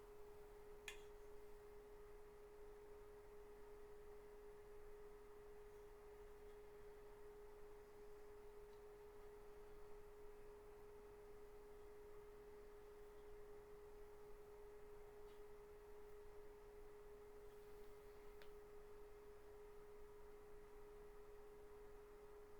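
Near silence with a faint, steady hum held at one mid pitch, and a few faint ticks.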